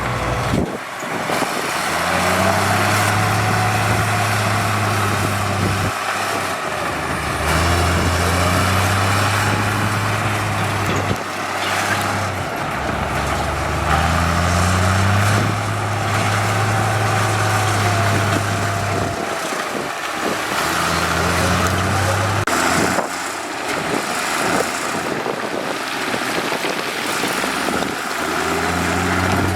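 Heavy diesel construction machinery working: a big engine revs up under load and drops back again and again, every few seconds, over a steady mechanical clatter and hiss.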